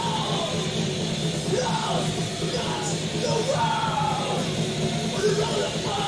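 Live thrash metal: a full band playing loud and dense, with shouted vocals over it.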